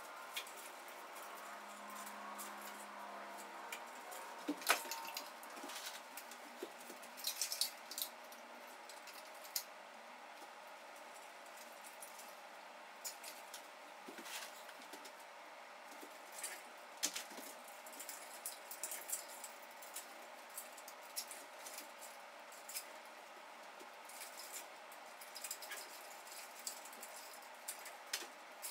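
Faint, scattered clicks, taps and rustles of a hanging sculpture of strung black segments being handled and adjusted, with a few footsteps, over a steady room hum.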